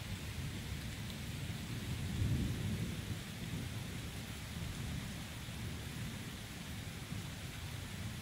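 Thunder rumbling, swelling to its loudest about two seconds in and then easing off, over the steady hiss of falling rain.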